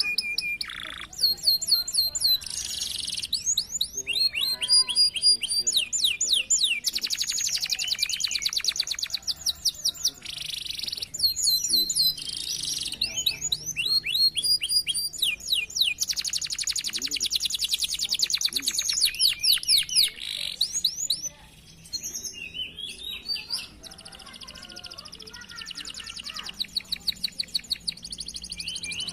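Domestic canaries singing: long rolling trills and fast runs of repeated whistled notes, some rising and falling in quick sweeps, with one short pause about two-thirds through.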